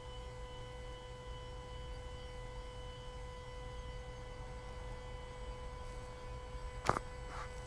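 Steady electrical whine of several even tones over a low mains-type hum, with one sharp tap about seven seconds in.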